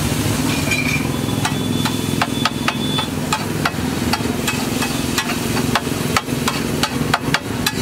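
Metal spatula repeatedly striking and scraping a large flat griddle (tawa) while chopping and mashing a dried-pea chaat mixture: sharp irregular knocks, several a second, over a steady low hum.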